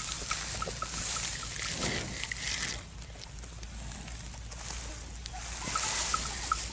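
A buffalo chewing its cud, with wet, sloshing jaw sounds and small clicks. Over it a high hiss swells and fades, with a faint chirp repeated a few times a second in the first second and again near the end.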